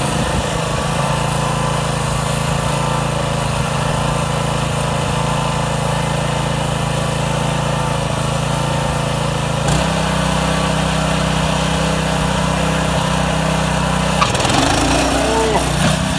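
Wheel Horse B-60 garden tractor's Predator 6.5 hp single-cylinder engine running steadily. Its note shifts about ten seconds in and turns uneven near the end as the tractor moves off.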